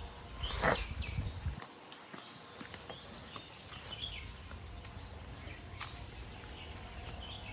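Quiet forest ambience with scattered short bird chirps. A brief sharp knock comes about half a second in, over a low rumble that fades after the first second and a half.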